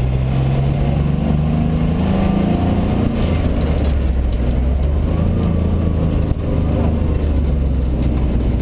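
Mitsubishi Colt rally car's engine heard from inside the cabin under hard driving. It rises in pitch for about three seconds, drops sharply, then pulls on at a lower, steadier note, with a brief dip a little after six seconds.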